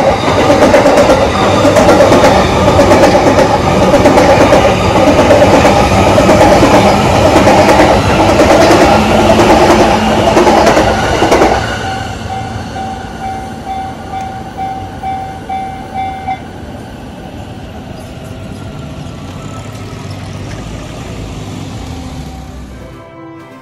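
A Yamanote Line electric train passing over the level crossing, its wheels clattering over the rails, with the crossing's warning bell ringing in a repeating ding. The train noise cuts off about halfway through, and the bell stops a few seconds later, leaving a quieter steady background.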